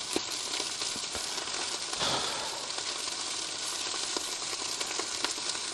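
Mince wrapped in tin foil sizzling as it cooks on the stove: a steady hiss with small scattered crackles, swelling slightly about two seconds in.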